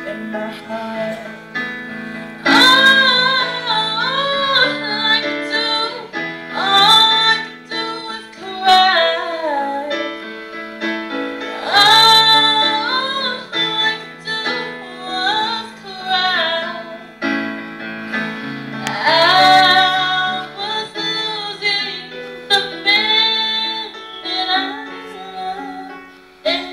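A teenage girl singing solo to piano accompaniment, holding long notes with vibrato in phrases that swell and fall back.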